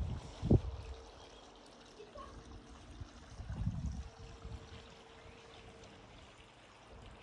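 Faint trickling water from a garden pond, with a steady faint hum. Low rumbles come just after the start and again about three and a half seconds in.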